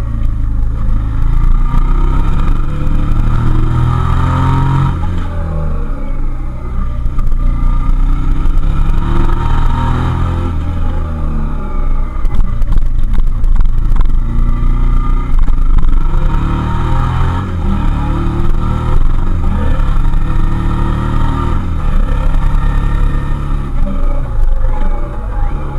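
Suzuki SV650S 650 cc V-twin engine under way, its note climbing under acceleration and dropping at gear changes or throttle lifts several times. A low rumble runs underneath.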